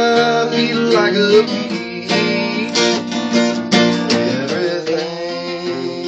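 Acoustic guitar and a second, smaller guitar played together, with strummed chords and sustained notes.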